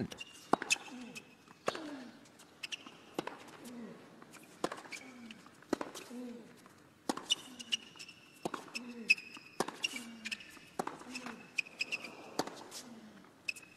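Tennis rally on a hard court: a racket strikes the ball about once a second, and nearly every shot comes with a short falling grunt from the player. Tennis shoes squeak briefly on the court between shots.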